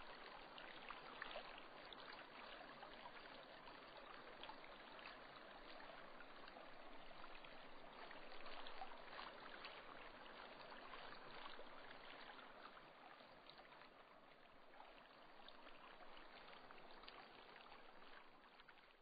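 Near silence: a faint, steady hiss with occasional tiny crackles.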